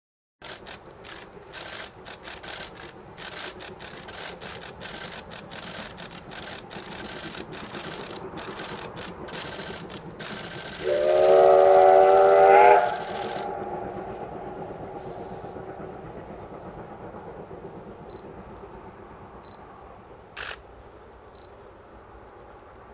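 Steam locomotive chuffing in a fast, regular run of exhaust beats, then sounding its steam whistle in one long blast of about two seconds a little under halfway through. Afterwards the train's running fades to a steady rumble, with a single sharp click near the end.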